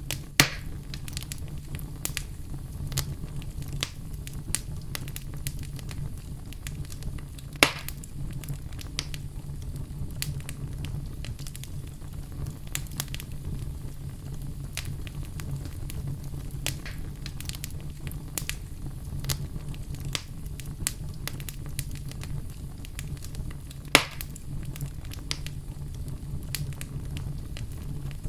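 Fire burning in a fireplace: a steady low rumble with frequent small crackles, and three loud sharp pops spread through it.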